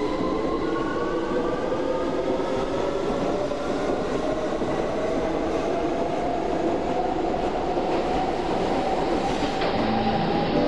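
Metro train carriage interior as the train runs: a steady rumble with a whine that slowly rises in pitch.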